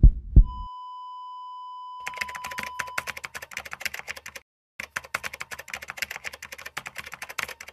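Rapid, irregular clicking like typing on a computer keyboard, in two runs with a short break in the middle. It is preceded by a steady electronic beep lasting a couple of seconds, and two low thumps at the very start.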